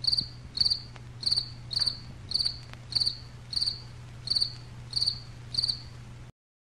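Cricket chirping sound effect: a short, high, pulsed chirp about every 0.6 seconds over a low steady hum, cutting off abruptly about six seconds in. It is the classic "crickets" awkward-silence gag.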